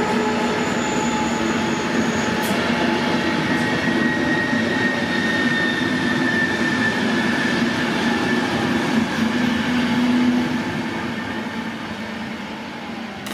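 Intercity train hauled by a DB class 245 diesel locomotive rolling past and moving away: the diesel engine running with the steady rumble of the coaches on the rails, fading from about ten seconds in as the train draws off.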